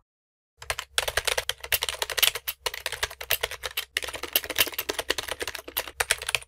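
Rapid typing on a computer keyboard: a fast run of key clicks starting about half a second in, with a couple of brief pauses, over a faint low hum.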